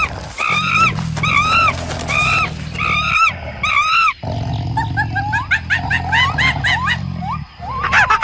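Gibbon calling: a run of arched hooting notes, about two a second, then shorter rising whoops that come faster near the end, over a low steady rumble.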